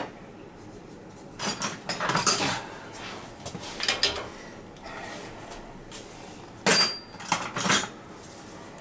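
Metal hand tool clinking and scraping against the bolts of a dripping boiler fitting as they are tightened to stop the leak: a few separate clanks, the sharpest with a short metallic ring about seven seconds in.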